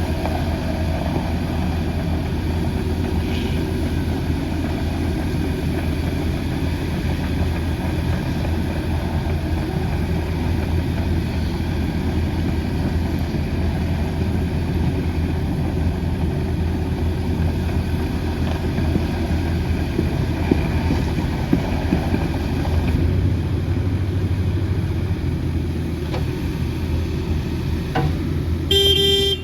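Diesel engine of a Sany SY80U midi excavator running steadily. A short high tone sounds near the end.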